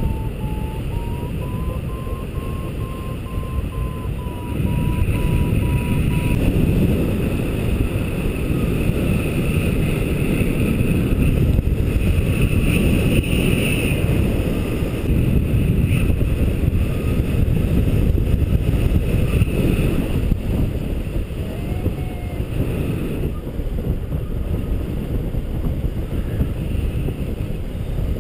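Steady rush of wind buffeting the microphone of a paraglider in flight. For about the first six seconds a variometer beeps in quick pulses, its pitch rising slightly, the tone it gives while the glider climbs.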